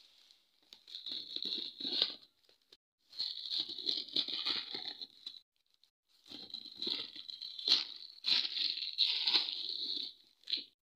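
Thin black plastic courier bag being torn open and crinkled by hand, in several bouts with short pauses between them and a few sharp snaps.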